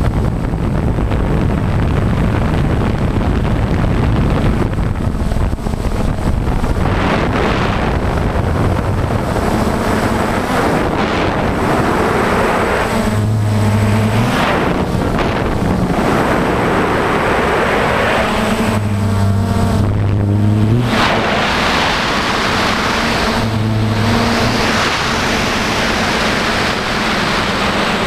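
DJI Phantom quadcopter's motors and propellers running in flight, a steady buzzing hum that steps up and down in pitch several times, with wind rushing over the onboard camera's microphone.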